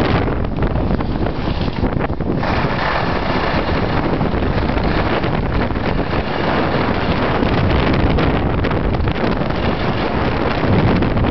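Wind buffeting the camera microphone as the skier moves downhill at speed, a steady loud rushing noise.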